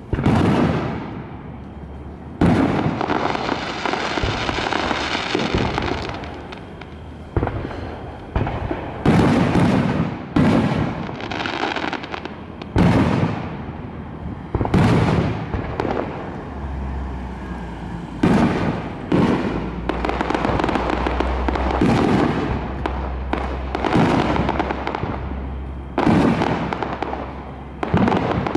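Aerial firework shells bursting overhead in quick succession, a loud bang every second or two, each followed by a fading tail. A sustained hiss follows one burst about two seconds in.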